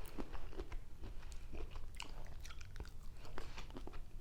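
A person chewing cocktail shrimp close to the microphone, a run of small irregular mouth clicks.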